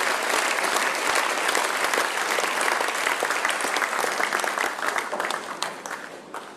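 Crowd of spectators applauding a ten-pin bowling strike, the clapping fading away over the last second or so.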